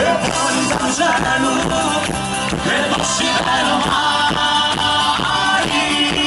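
A folk band playing a Calabrian tarantella live, with a fast, even beat.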